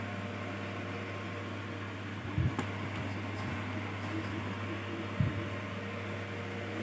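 A steady low electrical hum with two soft knocks, about two and a half seconds and five seconds in, and a faint click, from parts of an opened laptop being handled during disassembly.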